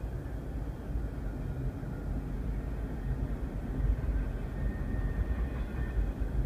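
Union Pacific double-stack container freight train rolling past in a steady low rumble, heard from inside a car. A faint high-pitched tone rises above the rumble for a second or two in the second half.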